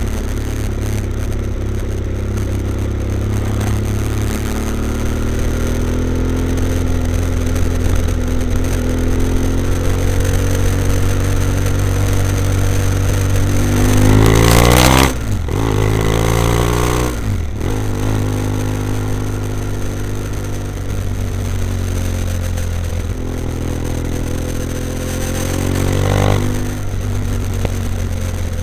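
BMW F800ST's parallel-twin engine running through a Blue Flame twin-port exhaust with both baffles in, as the bike rides and accelerates through town. The engine note climbs slowly, rises steeply to its loudest about halfway through, drops sharply twice in quick succession as the revs fall, then climbs again and falls once more near the end.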